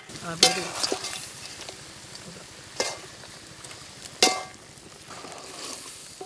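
Chunks of pork sizzling in a wide metal pan as their own fat renders out. A metal ladle stirs them, clanking sharply against the pan three times with a short ring.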